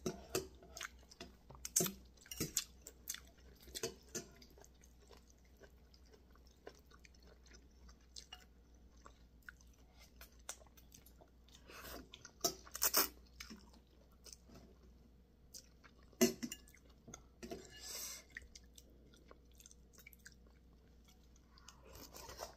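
Close-up mouth sounds of a person eating noodle soup: wet chewing and lip smacks throughout. About halfway through come a few louder slurps of noodles and broth.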